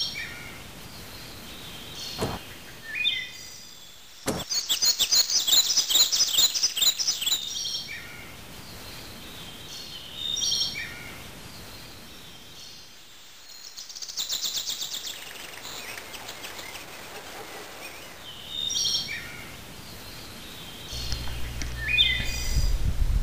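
Wild birds chirping and singing, with a rapid trill of repeated high notes from about four to seven seconds in and another shorter trill near the middle. Two sharp clicks come in the first few seconds, and a low rumble starts near the end.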